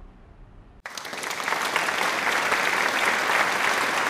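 Applause, a dense crowd of hand claps, starting abruptly about a second in after a moment of quiet room tone.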